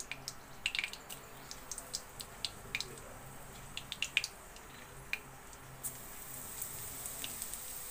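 Hot oil in a kadhai crackling with scattered small pops as dried red chillies fry in it. A brighter, steady sizzle builds near the end as cumin seeds are added to the oil.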